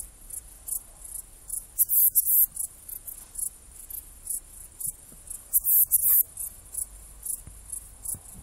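Saddle-backed bush cricket (Ephippiger ephippiger) stridulating: short, very high, hissy chirps. Louder clusters of two or three chirps come about two seconds in and again near six seconds, with fainter single chirps about every half second in between.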